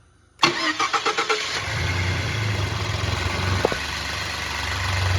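2013 Ford F-150's 3.5-litre EcoBoost V6 cranking on the starter without firing, starting suddenly about half a second in with quick even pulses, then turning over steadily. It is a crank/no-start: the in-tank fuel pump is making zero fuel pressure.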